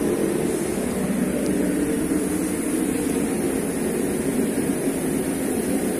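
Steady hum and whir of running machinery, even throughout with no rhythm or sudden knocks.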